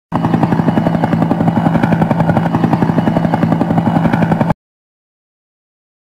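Helicopter rotor chopping in rapid, even pulses over a steady low hum; it cuts off suddenly after about four and a half seconds.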